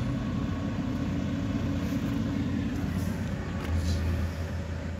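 A truck's diesel engine idling with a steady low rumble, which gets a little heavier about three-quarters of the way through.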